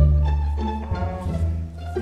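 Background music carried by low bowed string instruments, its bass note changing about a second in.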